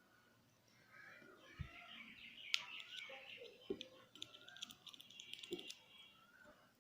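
Faint bird chirping in the background, with four or five light clicks and knocks from handling the syringe and battery while dilute acid is dripped into the battery's cells. The sharpest click comes about two and a half seconds in.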